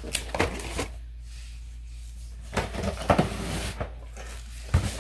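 Cardboard toy boxes being handled and moved, giving scattered knocks, taps and rustles of packaging, over a low steady hum.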